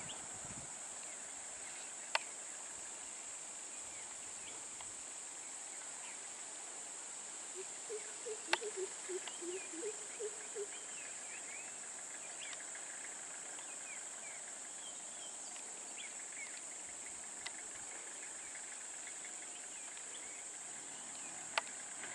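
Roadside forest ambience: a steady, high-pitched insect drone with scattered bird chirps. About eight seconds in there is a quick run of a dozen or so short, low calls, and a few sharp clicks stand out.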